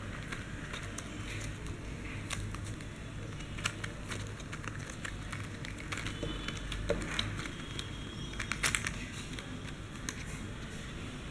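Clear plastic blister tray and cardboard sleeve of earphone packaging crinkling and clicking as they are handled, with a cluster of sharper clicks about three-quarters of the way through, over a steady low hum.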